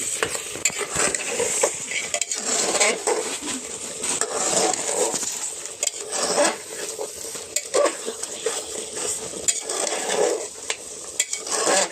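Metal spoon or spatula stirring and scraping goat mutton as it fries in a pot, with repeated clinks and scrapes against the metal over a steady sizzle.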